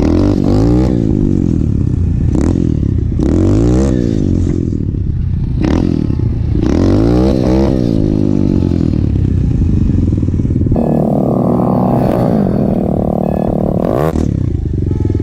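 125cc pit bike engine riding along, revving up and dropping back several times as the rider works the throttle and gears. It then runs at a steadier, higher pitch for the last few seconds.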